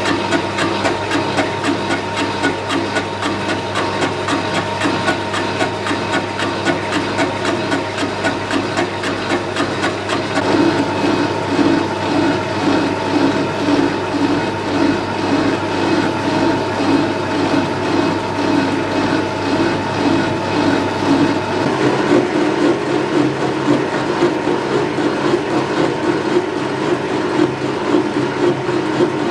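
Metal lathe running with a steady motor hum and whine while the tool takes an interrupted cut on an off-centre block spinning on the faceplate, knocking rhythmically a few times a second as the work passes the tool on each turn.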